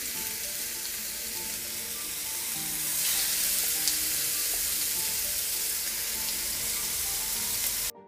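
Köfte patties sizzling in a hot, oiled cast-iron grill pan on a burner turned up full. The sizzle grows louder about three seconds in as another raw patty is laid in, then cuts off suddenly near the end. The cook takes this sizzle as the sign that the pan is at the right heat.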